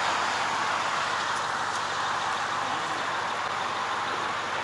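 Steady vehicle noise from trucks and road traffic: an even, continuous rush with no rise or fall.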